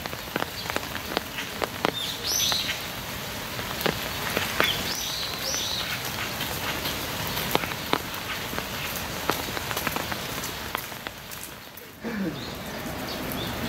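Rain falling, with many sharp separate drop ticks over a steady hiss. A few short, rising bird chirps come through about two and a half and five seconds in.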